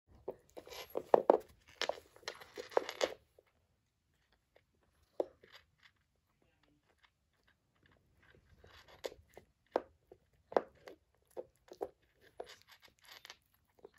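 Corgi puppy gnawing on a hard translucent chew bone: teeth clicking and crunching on the toy in quick clusters. The clicking is busiest and loudest over the first three seconds, with quiet spells later and clusters of clicks again in the second half.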